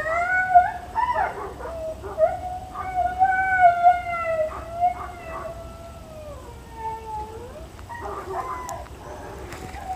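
An animal howling: a long, high, wavering note held for several seconds that slides down at its end, followed by a few shorter, rougher cries.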